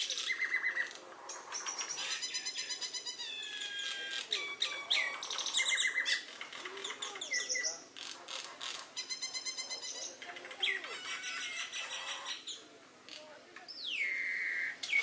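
Several birds calling excitedly in a squabble: a busy mix of chirps and squawks, rapid rattling trills several times over, and falling whistled calls, one long downward glide near the end.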